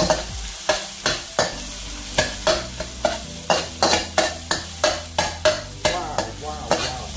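Garlic and chilli paste sizzling in hot oil in a wok while being stirred, the utensil scraping and knocking against the pan about three times a second over the steady frying hiss.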